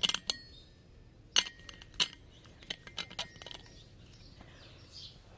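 Light metallic clicks and clinks from a small red metal tin being handled, the sharpest ones ringing briefly: a quick cluster at the start, single sharp clinks about one and a half and two seconds in, and a few softer ones just after three seconds.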